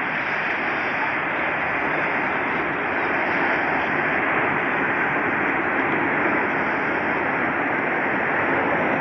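Boeing 747-400's four turbofan engines at takeoff power as the airliner climbs away just after liftoff: a steady rushing jet noise with no distinct tones, growing slightly louder a few seconds in.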